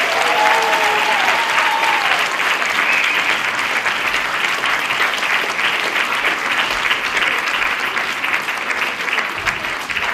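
A large crowd applauding steadily, a dense, even clapping.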